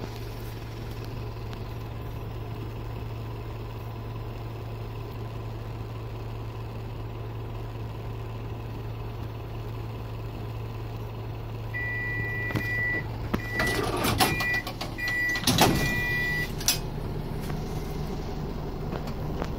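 The DMV's diesel engine idling steadily with a low hum while the vehicle stands at a station. About twelve seconds in, a run of about five high electronic warning beeps sounds along with a few sharp clunks and rattles as the door is closed.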